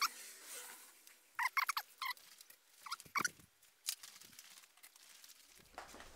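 Small clusters of short metallic clicks and squeaks from a hex key working small bolts on a motorcycle engine's cylinder head. They come every half second to a second for the first four seconds, then stop.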